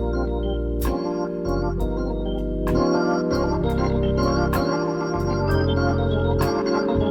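Hammond organ playing a slow tune in held chords over a bass line that moves from note to note, the bass played on the organ's pedals. A few sharp hits sound through it.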